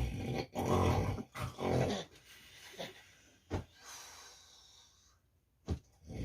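Man snoring, with three loud snorts in the first two seconds and a long whistling hiss on a breath out about four seconds in.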